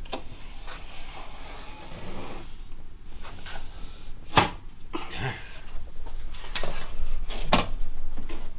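A drywall T-square being shifted and pressed against a drywall sheet overhead while lines are marked along it: scraping and rubbing with several sharp knocks, the loudest about four and a half seconds in.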